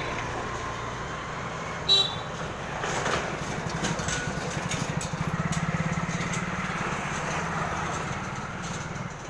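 Street traffic: a short high horn beep about two seconds in, then a motor vehicle's engine rumbling past close by. The rumble is loudest around the middle and eases off near the end.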